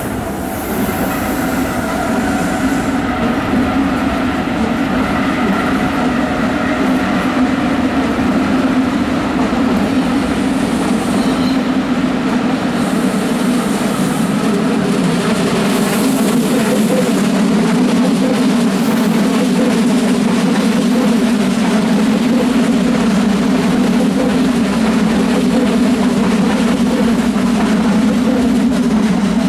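Red S-Bahn electric train rolling slowly past close by on the station tracks: a loud, steady low drone, with higher whining tones that fade out about eight seconds in.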